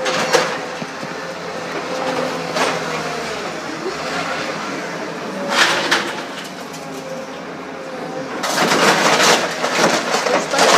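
Atlas scrap material handler running steadily while its orange-peel grab handles crushed scrap metal. Metal crashes about half a second in, near three seconds and near six seconds, then a longer spell of clattering, grinding scrap from about eight and a half seconds on.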